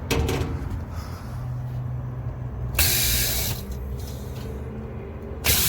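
Lennox Landmark packaged rooftop unit's compressors running with a steady low hum, sounding normal. Two short bursts of hiss cut in, about three seconds in and near the end.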